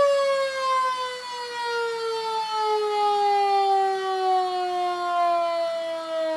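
Antique fire truck's siren winding down, one long wail sliding slowly and steadily lower in pitch.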